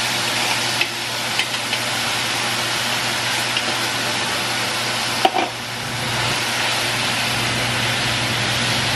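Steady hiss and hum of a pan of baked beans and hot dogs heating over a gas burner, with a few light knocks as the metal bean can is tapped over the pan about a second in, and a sharper metallic knock about five seconds in.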